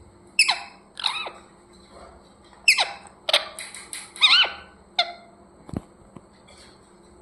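Pet parrot giving a run of sharp, high chirps that each drop quickly in pitch, in two bursts with a pause between, and a short knock near the end.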